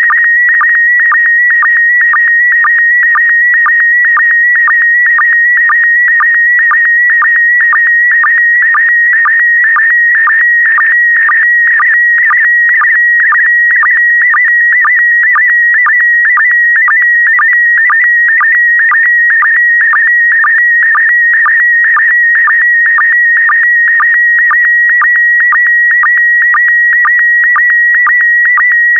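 Slow-scan television (SSTV) PD120 image transmission: a loud, steady high electronic tone that wavers slightly as it carries the picture's brightness and colour, broken by a short dip to a lower pitch about twice a second. Each dip is a sync pulse marking the start of the next pair of image lines.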